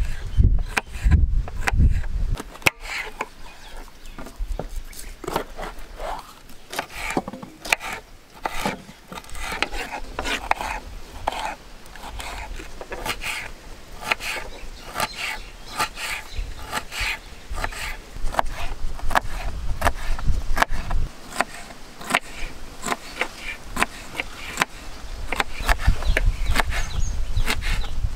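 Kitchen knife dicing bell peppers on a wooden cutting board: a fast, uneven run of sharp taps as the blade cuts through and strikes the board.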